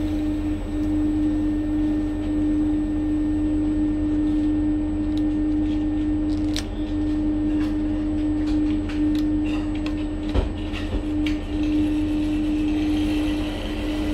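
Bus cabin: a steady low engine rumble under a constant hum. In the middle a run of light plastic clicks and crackles as a candy tray and its dip cup are handled, with one louder knock about ten seconds in.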